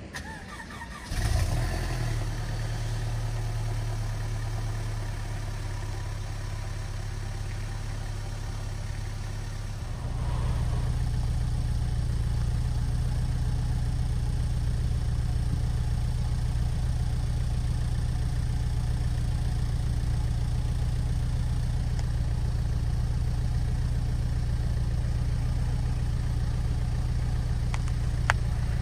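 2018 Mercedes-Benz C300's turbocharged 2.0-litre four-cylinder cold-starting at about −29 °C, heard from behind at the exhausts: a short crank and catch about a second in, then a steady cold-start idle. About ten seconds in the engine sound steps up louder and stays there; a short click comes near the end.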